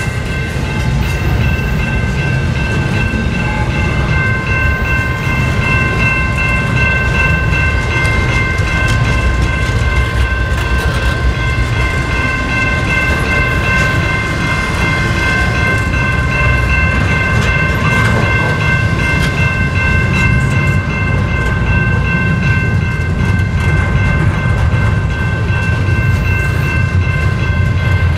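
Double-stack container train rolling past: a steady rumble of wheels and well cars on the rails, with a steady high-pitched ringing tone laid over it the whole time.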